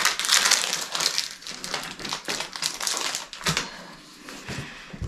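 Foil booster-pack wrapper crinkling and tearing as a Pokémon card pack is opened by hand: a dense crackle, loudest in the first second and a half, fading to lighter handling with a few soft knocks near the end.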